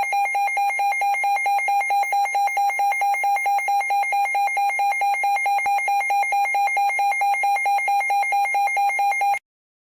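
Weather-radio alert alarm: an electronic beeping tone pulsing rapidly, about six beeps a second, that cuts off suddenly near the end.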